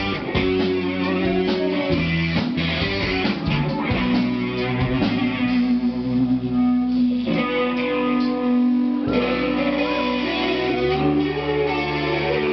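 A rock band playing live: electric guitar and bass over drums. For a few seconds midway the drum hits thin out and held guitar notes ring.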